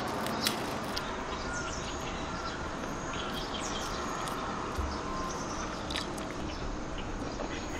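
Birds chirping in short, scattered calls over a steady background hiss.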